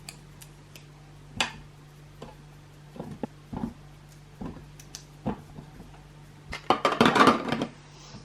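Kitchen containers and dishes being handled and set down, with separate knocks and clinks every second or so, and a denser, louder clatter near the end.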